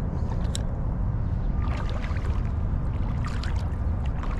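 Steady low rumble of wind buffeting the microphone, with a few faint clicks and handling noises from the fishing rod and spinning reel.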